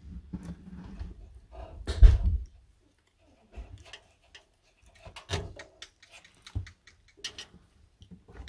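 Handling noise of electrical spade connectors being pushed onto a boiler fan's terminals: scattered small clicks and knocks. A rubbing rumble runs through the first two seconds, and a single loud thump comes about two seconds in.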